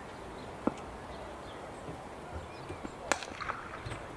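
Sharp knocks of a cricket ball on a bat, the first under a second in and a second about three seconds in, over a low outdoor background.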